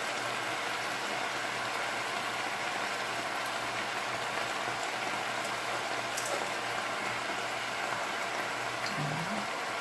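Hot frying pan sizzling steadily as fresh spinach leaves are dropped in by hand, with faint ticks over a low steady hum.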